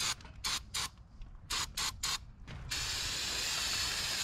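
Aerosol can of carburetor cleaner spraying: a quick series of short spurts, then a steady hiss of spray from about two and a half seconds in.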